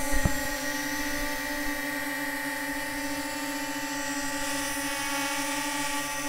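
Holy Stone HS720G quadcopter drone in flight, its propellers giving a steady whine that holds one pitch, as when it hovers in place. A single sharp click comes about a quarter second in.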